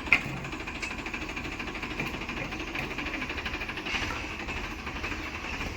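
Diesel engine of heavy farm and earthmoving machinery running steadily with an even, rapid beat, and a single sharp clank just after the start.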